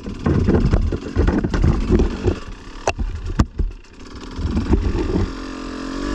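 Enduro dirt bike engine running at low revs over rough ground, uneven, with knocks and two sharp clicks about three seconds in. The engine picks up again after a short lull near the middle.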